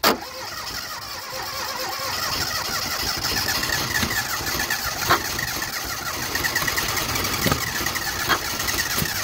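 The old Fiat 127's engine cranks and runs roughly with a steady rattling drone, broken by a few sharp pops. It keeps going only when the throttle is pumped, with the carburettor faulty.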